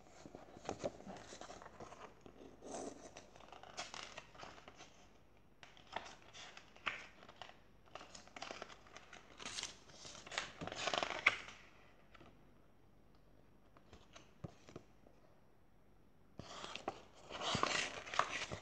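Paper rustling and crinkling as a thin paperback picture book is handled and its pages turned, coming in irregular bursts with a quieter spell of a few seconds about two-thirds through and a louder burst near the end.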